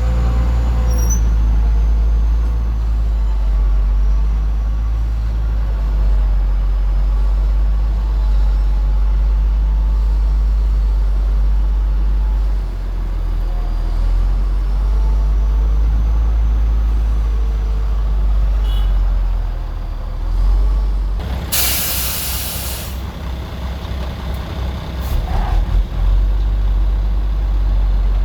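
Heavy diesel earthmoving machinery running with a steady low rumble. About three-quarters of the way through comes a loud burst of air hiss lasting over a second, followed by a few short knocks.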